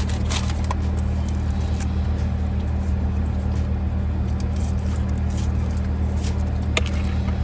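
Idling car's steady low hum heard from inside the cabin, with a few light clicks and rustles as food is handled.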